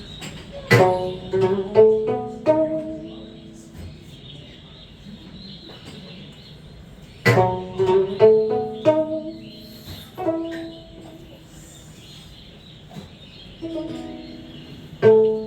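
A plucked string instrument playing three short phrases of several ringing notes each, separated by pauses of a few seconds.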